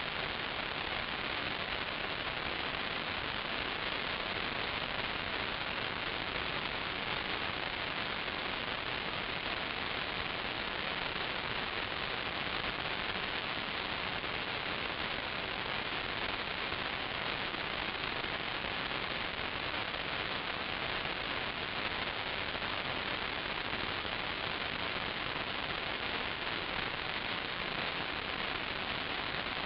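Steady static hiss with no tones and no changes, typical of the empty audio channel of an analog 5.8 GHz FPV video receiver.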